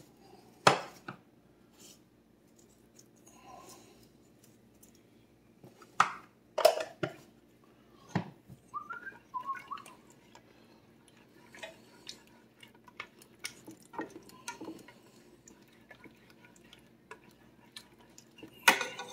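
Metal spoon stirring thick creamy soup in a stainless steel pot, clinking and scraping against the pot now and then, with a few sharp clinks, over a faint steady low hum.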